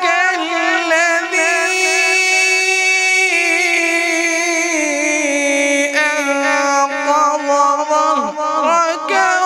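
A man's voice in melodic Quran recitation (tilawat), through a microphone and PA, drawing out one long held phrase. The pitch holds steady, steps down about halfway through, and breaks into quick ornamented turns near the end.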